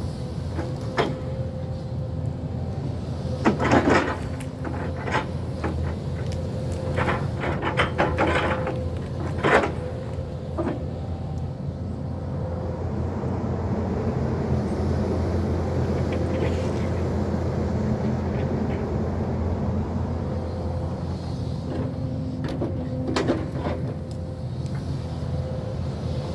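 Hyundai crawler excavator's diesel engine running steadily under working load, with bursts of sharp cracks and knocks scattered through it, a few seconds in, around the middle and near the end.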